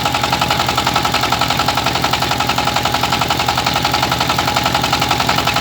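Rice milling machine running steadily, with a rapid, even thumping and a constant hum.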